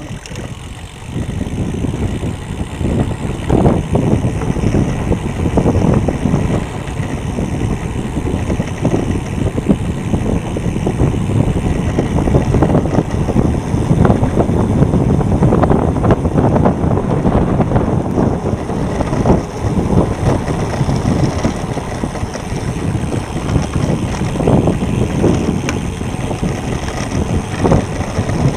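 Wind buffeting the action camera's microphone as a road bike rides along, a loud, gusty low rumble that swells and dips throughout, with tyre noise on coarse asphalt beneath.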